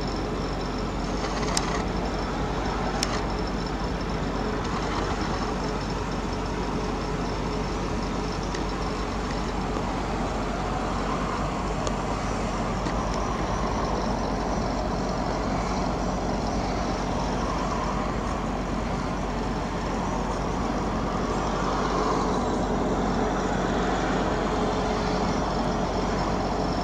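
Steady road traffic noise, with two short clicks about a second and a half and three seconds in.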